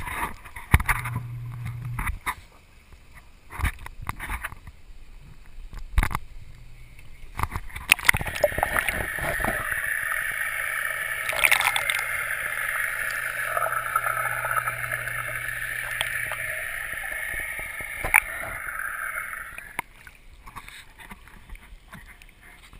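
Knocks and bumps of a handheld waterproof camera housing. From about eight seconds in comes a steady gurgling rush of water around the submerged housing, with a low hum under part of it. The rush stops about three seconds before the end, and a few light knocks follow.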